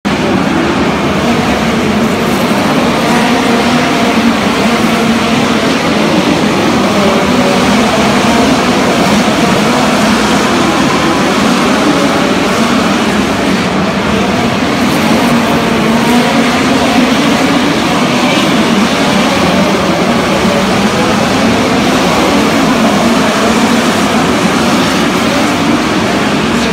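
Several midget race cars' four-cylinder engines at racing speed inside an arena, a loud, unbroken engine drone whose pitch keeps rising and falling as the cars power down the straights and lift for the turns.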